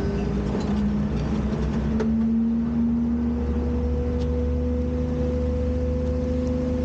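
Front-load garbage truck's engine running steadily with a low rumble; its pitch rises slightly between about one and two seconds in, then holds.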